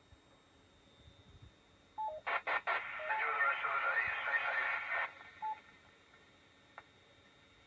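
Soviet R-123M VHF FM tank radio receiving a 10-metre FM station: a few clicks and a short beep, then about two seconds of noisy, narrow-band received audio, ending with another short beep, over a faint steady high whine.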